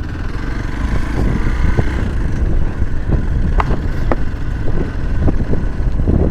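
Motorcycle on the move, its engine running under heavy wind buffeting on the microphone.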